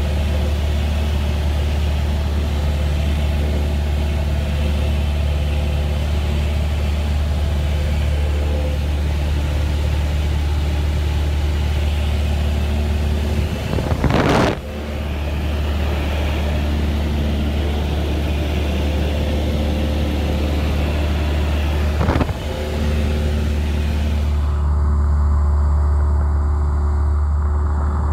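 Cessna 172's piston engine and propeller droning steadily in cruise flight, heard from inside the cabin as a strong low hum with engine tones above it. Two brief rushing bumps break in, about halfway through and again later.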